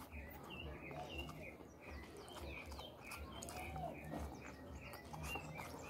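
Small birds chirping over and over, with a few faint clicks and smacks from someone eating rice by hand.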